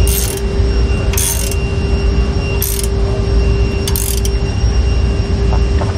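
Ratchet wrench clicking in four short strokes, about one every second and a half, snugging down a bolt on a rear sway bar mounting bracket. A steady low hum runs underneath.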